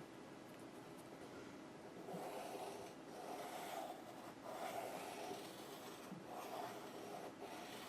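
Pencil being drawn around a circle template on a plastic sheet, a faint scratchy rubbing in several strokes that starts about two seconds in and stops near the end.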